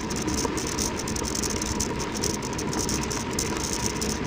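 Mountain bike rolling fast downhill over a rough volcanic track: a steady rumble of tyres on loose ground with a constant rattle from the bike.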